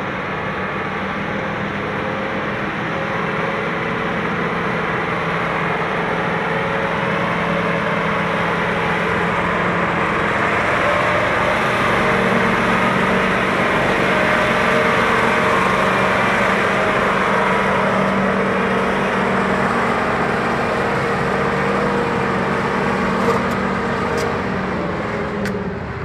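Logging truck's diesel engine running steadily under heavy load on a steep climb, growing a little louder in the middle. A few faint clicks near the end.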